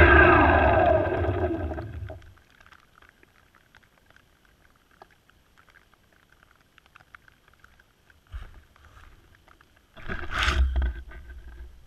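Electric motors and propellers of a small multirotor drone spinning down after landing in grass: a multi-tone whine that falls in pitch and fades out over about two seconds. Then near quiet, with a thump and grass rustling near the end as someone walks up to it.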